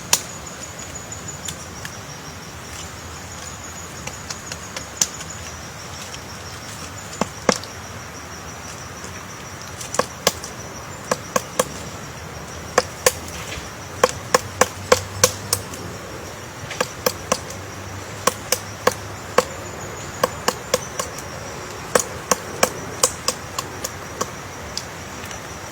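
Woodpecker pecking into wood: irregular sharp taps, some single and some in quick runs of two to five, over a steady high-pitched insect trill.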